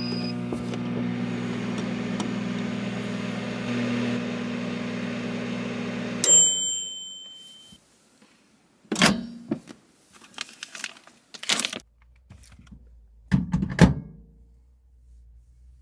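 Portable car-camping microwave oven running with a steady electrical hum, which stops about six seconds in with a single ringing ding as the timer ends. A few separate clunks and knocks follow near the end.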